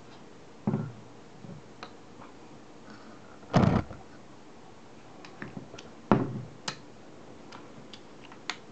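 Handling noise from a Nikon F2 camera with its MF-11 back and motor drive being turned around by hand: a few knocks, the loudest past three and a half seconds, others about a second in and just after six seconds, with light clicks and ticks between.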